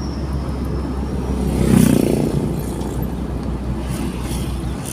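Steady car engine and road noise, with a louder swell of vehicle noise about two seconds in.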